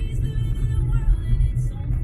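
Car driving along a road: a steady low road rumble, with music playing over it.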